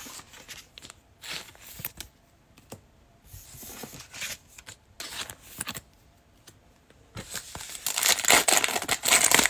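Light rustles and taps of trading cards being handled, then, about seven seconds in, a loud crinkling tear as a 2021 Panini Illusions football card pack's wrapper is ripped open.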